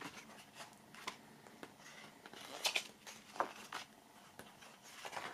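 Pages of a glossy photo booklet being turned by hand: faint paper rustling with a few sharper page flicks a little past the middle.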